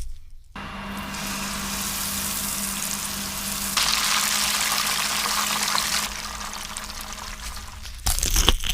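Hot Cheetos-coated chicken frying in hot oil, a steady sizzle that starts suddenly about half a second in and grows louder for a couple of seconds in the middle.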